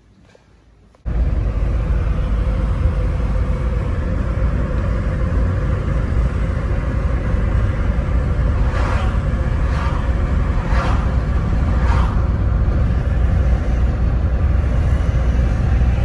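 Car interior road noise while driving on a country road: a loud, steady low rumble of engine and tyres that cuts in abruptly about a second in after a quieter start, with a few brief louder swishes in the second half.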